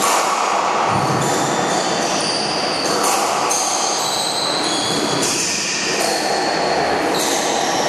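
Squash rally: shoes squeaking sharply on the wooden court floor as the players move, with several sharp smacks of the ball off racquets and walls ringing in the enclosed court.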